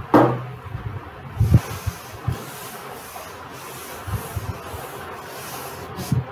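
Small chalkboard being wiped clean, a rubbing swish repeated about twice a second, with a couple of low knocks of the board near the start.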